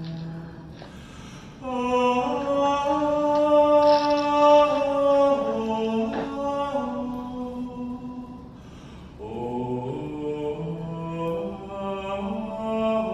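Choral chanting: several voices holding long notes together that move from chord to chord, swelling about two seconds in, dipping around eight seconds and rising again a second later.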